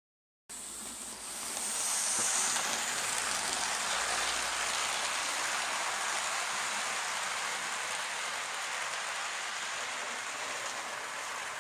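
00 gauge model train running along the layout track: a steady rushing hiss that starts abruptly about half a second in and swells slightly over the next second.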